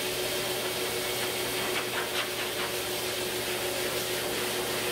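High-velocity pet grooming dryer running steadily, blasting air through a Husky's thick, shedding double coat: a constant rushing hiss with a steady tone underneath.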